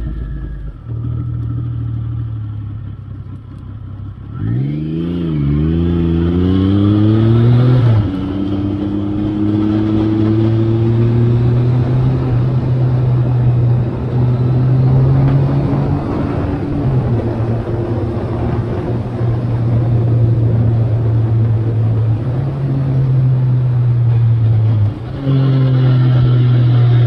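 2003 Triumph Sprint ST 955i's three-cylinder engine under way, with wind noise. The revs climb unevenly from about four seconds in and drop sharply about eight seconds in, then run fairly steadily with small changes in pitch and a brief dip near the end.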